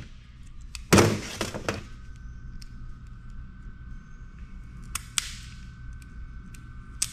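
Pliers cracking open the casing of a small component pulled from a circuit board: one crunch about a second in, then a few light clicks from the pliers and the broken pieces.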